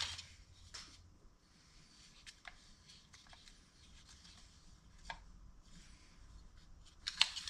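Faint rubbing of a starter rope being drawn out of a recoil pull-start by hand, with a few light clicks; the rubbing and clicking get louder near the end.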